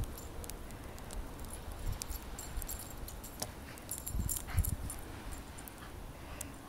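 Miniature Australian Shepherd running and playing in snow: scattered light clicks and jingles with soft low thumps, over a low rumble.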